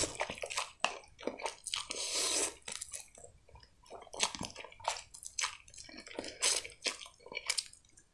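Close-up slurping and wet chewing of instant noodles eaten with chopsticks: a run of short smacking clicks, with longer slurps at the start and about two seconds in.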